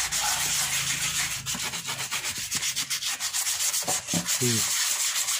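Wet sandpaper rubbed by hand in quick repeated strokes over the plastic seat of a monoblock chair, scratchy and continuous, wet-sanding off the chalky, powdery weathered top layer.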